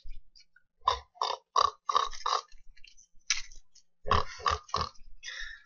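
A person oinking like a pig: about five short oinks in quick succession, roughly three a second, then another quick run of oinks about four seconds in.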